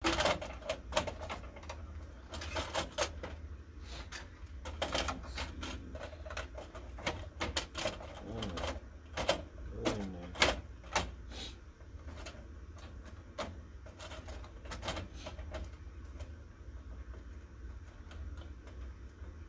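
Irregular plastic clicks and knocks as the covers and internal parts of an office printer are handled and worked loose, busiest in the first twelve seconds or so, with a couple of brief squeaks near the middle. A steady low hum runs underneath.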